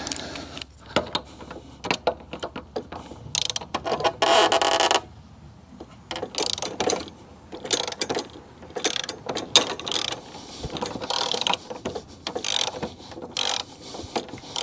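Hand socket ratchet clicking in short, uneven runs, with a longer continuous run about four seconds in, as a mower blade bolt on a Kubota 60-inch deck spindle is loosened.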